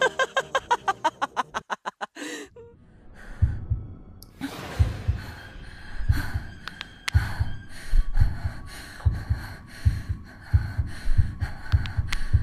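A woman laughing loudly in quick pulses, cutting off about two seconds in. Then a heartbeat sound effect thumps in steady pairs, with a faint steady high tone over it.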